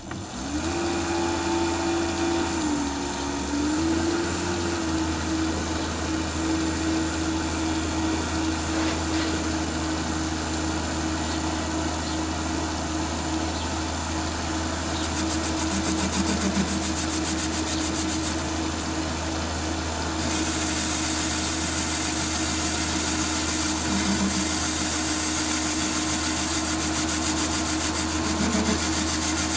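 Metal lathe switched on and running, its spindle spinning a four-jaw chuck held in the three-jaw chuck, with a steady motor hum and a high whine. About 20 seconds in, a louder hiss joins as the turning tool starts cutting the backplate's outer diameter.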